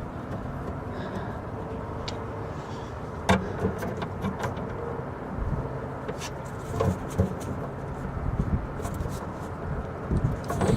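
Hand crimping tool working a heavy-duty terminal onto a battery cable: scattered clicks and knocks, the sharpest about three seconds in, over a steady low hum. The terminal will not crimp properly.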